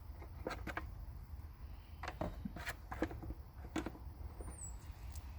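Scattered light clicks and taps of screws and a motorcycle oil reservoir being handled and lined up, about half a dozen short knocks over a low background hum.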